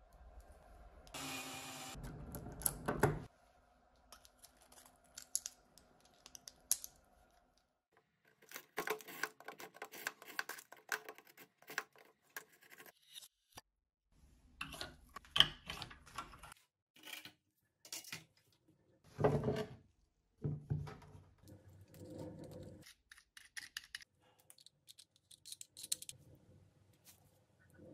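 Hands working small metal hardware (a door hinge, a spring-steel binder clip, a hammer clamped in a vise), giving an irregular string of clicks, clinks and scrapes. A longer scraping noise comes about one to three seconds in.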